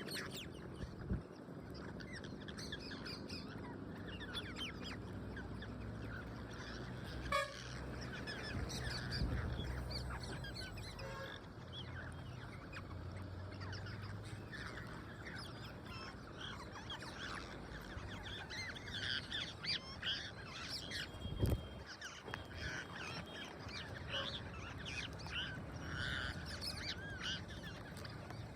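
Parrots calling while they feed: a constant scatter of short, high squawks and chatter from several birds, with two sharp knocks along the way.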